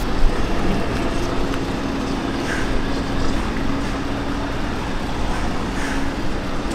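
Scania S520 truck's V8 diesel engine running steadily at low revs as the tractor-trailer drives slowly off, with a short bump just after the start.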